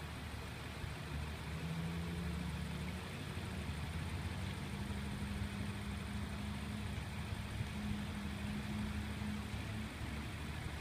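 An engine running steadily with a low hum, its pitch stepping up slightly a few seconds in, over a steady hiss.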